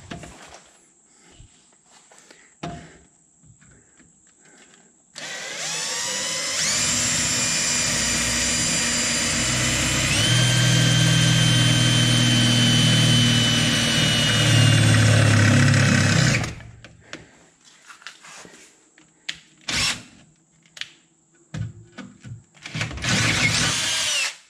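Cordless drill running under load as it bores a mounting hole into the bus's sheet-metal body. It runs for about eleven seconds, its motor speed stepping up twice, then runs again briefly near the end.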